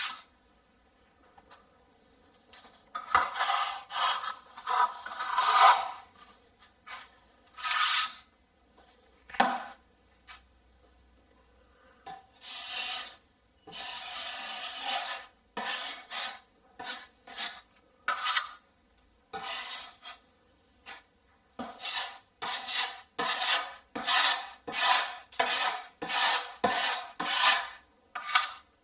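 Repeated raspy scraping strokes of a tool worked over a patched plasterboard (GIB) wall, coming in irregular runs with short pauses and growing quicker and more even near the end.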